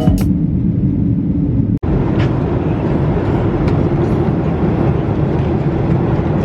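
A vehicle running with a steady low rumble, cut off briefly about two seconds in and then running on the same way.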